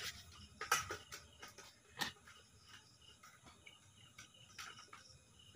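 Crickets chirping faintly, with two sharp clicks or knocks in the first two seconds as a plastic bottle of mustard oil is uncapped and tipped over a steel kadhai.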